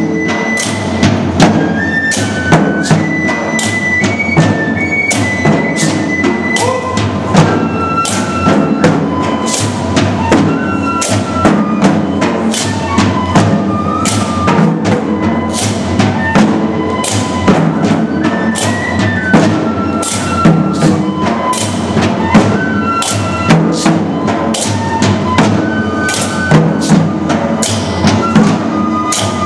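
Japanese dengaku folk music played live: sharp strokes from waist-worn drums and wooden clappers keep a steady beat under a high, held melody that steps up and down, typical of a bamboo flute.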